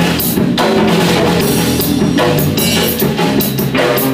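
Live band jam: electric bass guitar and drum kit playing together, with regular cymbal hits over the bass line.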